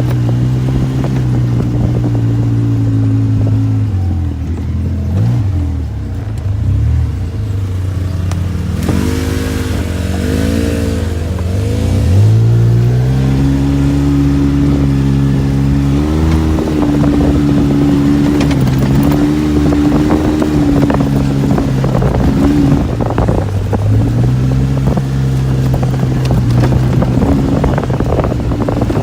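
Side-by-side off-road vehicle's engine running as it drives, its pitch dropping and rising with the throttle and climbing sharply about twelve seconds in. Short knocks and rattles from the vehicle over rough ground come in the second half.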